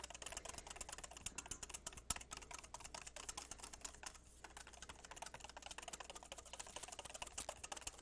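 Wire whisk beating quickly against a stainless steel mixing bowl: rapid, even clicking, with a short pause about halfway through. This is mayonnaise being whisked by hand as oil is emulsified into egg yolks.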